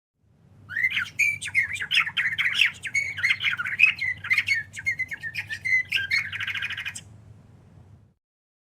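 Songbird singing a quick, varied run of chirps and whistled notes that ends in a fast buzzy trill and then cuts off suddenly, over a faint low rumble.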